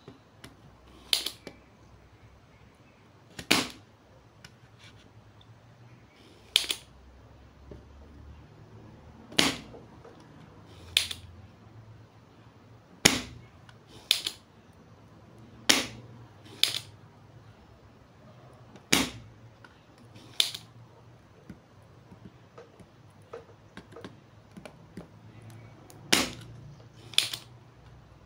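Spring-loaded desoldering pump (solder sucker) snapping as its plunger is released again and again to pull solder from the diode joints on a circuit board: sharp clicks at irregular gaps of one to three seconds, some in quick pairs.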